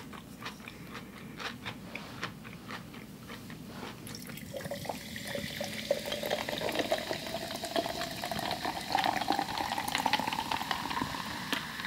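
A few light clicks, then sparkling water poured from a can into a glass mason jar, fizzing, with a pitch that rises steadily as the jar fills.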